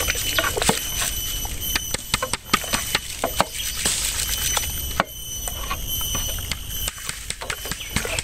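Soaked glutinous rice being tipped from an aluminium colander into a pot of boiling mung bean porridge and stirred with a long metal ladle: irregular clinks, knocks and scrapes of metal on the aluminium pot. A steady high-pitched whine runs underneath.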